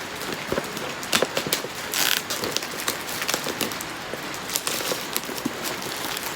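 Plastic packaging crinkling and crackling as it is cut open and handled, with many small clicks and one short rasping burst about two seconds in.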